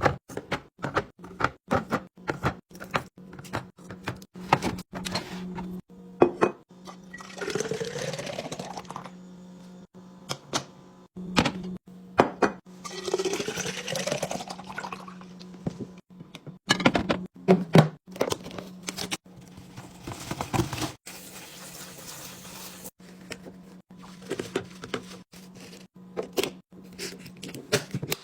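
Liquid poured into a container twice, each pour with a tone that rises as the container fills, among many light clicks and knocks of containers and lids being handled and set down. A low steady hum runs underneath.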